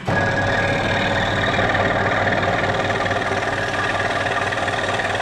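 Scroll saw running steadily, its reciprocating blade cutting through a plywood jigsaw-puzzle blank, with a constant motor hum under the cutting noise.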